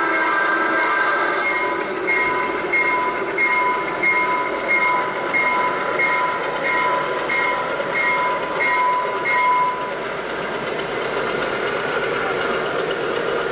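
Sound-equipped model Santa Fe diesel locomotive sounding a short horn blast, then a bell-like ding repeating about one and a half times a second until about ten seconds in, over the steady rumble of the passing train.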